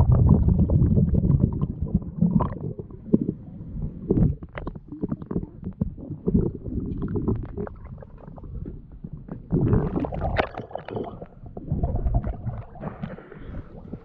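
Muffled underwater rumbling and bubbling, coming in swells every couple of seconds, typical of a scuba diver's regulator breathing and exhaled bubbles heard by an underwater camera.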